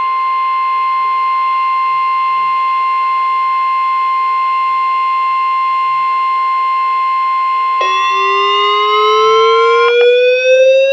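Weather radios sounding a steady, loud alert tone that starts abruptly, following a severe thunderstorm watch bulletin. About eight seconds in, a second alarm joins, rising steadily in pitch, and the steady tone cuts off near the end.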